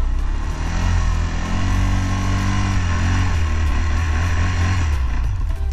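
CFMOTO CForce 600 ATV's single-cylinder engine running while plowing snow with a front blade. Its pitch rises about a second and a half in and drops back about two seconds later.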